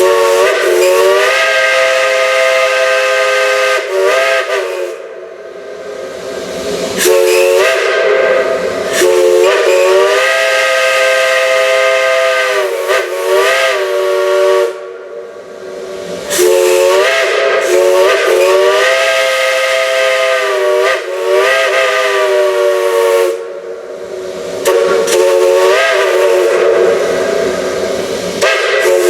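Steam whistle sounding a chord of several notes at once in a series of long blasts with short breaks between them. Each blast slides up in pitch as it opens, and steam hisses in the gaps.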